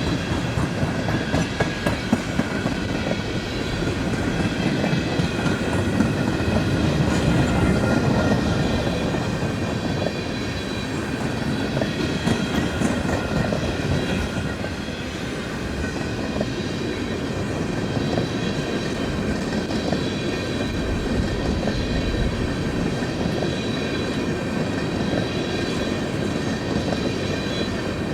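Freight cars of a mixed manifest train rolling past steadily, wheels clicking over the rail joints, with a steady high-pitched squeal or ringing from the wheels held over the rumble.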